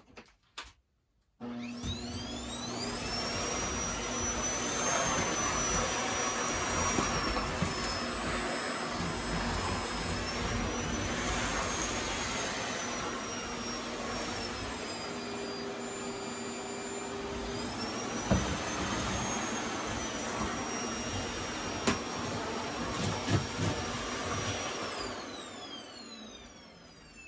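Vacuum cleaner switched on about a second in and running with a high motor whine whose pitch dips and rises a few times, with a few sharp knocks in the second half. Near the end it is switched off, and the whine falls away as the motor spins down.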